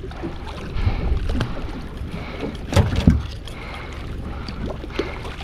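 Small boat drifting, with water slapping against the hull over a low wind rumble, and a few scattered knocks, the loudest about three seconds in.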